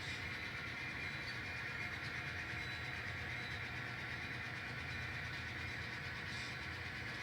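N scale model locomotive running steadily along the track, a continuous whir with a low hum underneath.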